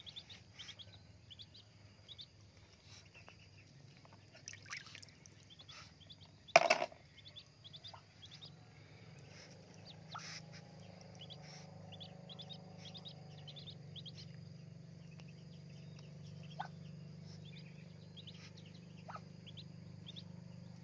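Muscovy ducklings peeping: many short, high peeps scattered throughout. A single loud thump comes about six and a half seconds in, and a low steady hum sets in from about ten seconds.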